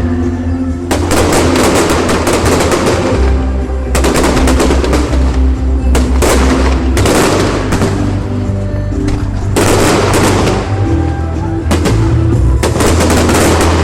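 Fireworks going off in rapid crackling volleys, several clusters of quick-fire bangs one after another, with music playing underneath.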